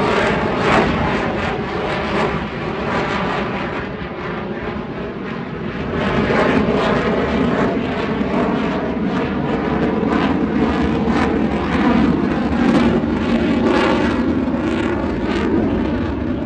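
Fighter jet flying past at an air show: a loud jet engine rumble with crackle that grows louder about six seconds in.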